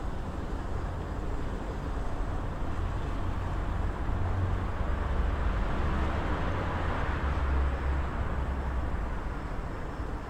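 City traffic: a steady low rumble of cars and other vehicles. It swells louder about halfway through and eases off again near the end.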